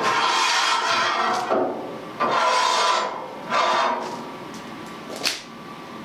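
Copper-coated steel earth rod scraping as it is pushed through holes in a steel Land Rover chassis, in three pushes, then a short knock a little after five seconds.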